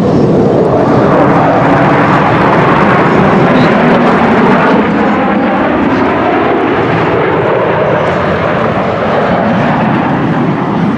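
Loud, steady noise of an airplane's engines.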